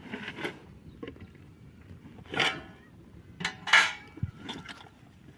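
Scattered clinks and knocks of hard objects being handled, with two louder clattering strikes about two and a half and nearly four seconds in.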